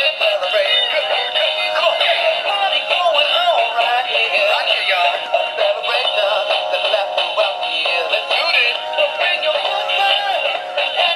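An animated plush dancing dog's built-in speaker plays a song with singing, thin and tinny with no bass, while the toy wiggles.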